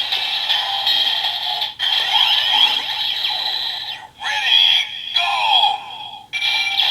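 Electronic sound effects from the DX Grease Blizzard Knuckle toy in the Build Driver, set off by turning its handle for a special attack. Warbling synthesized tones come in several bursts with short breaks between them.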